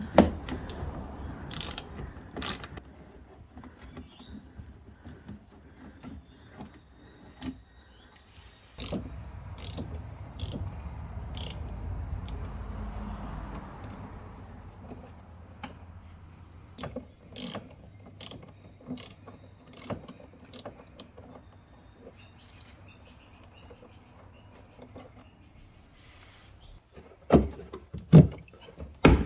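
Hand tools at work on a car's rear wheel arch: scattered sharp metallic clicks, a few seconds of low rumble in the middle, and several loud knocks near the end.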